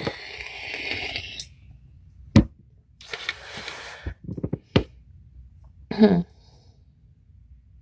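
A person breathing out audibly twice, like sighs, with a few sharp clicks between and a brief voiced 'hm' about six seconds in.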